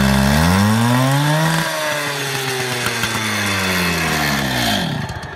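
Stihl two-stroke cut-off saw (demo saw) running off choke. It revs up steeply, then slowly falls back in pitch and dies away about five seconds in.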